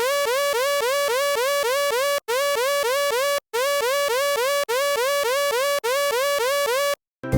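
Synthesized electronic tone in a rapid repeating upward chirp, about four to five rises a second, like a warbling alarm. It comes in runs of about a second with brief breaks between them.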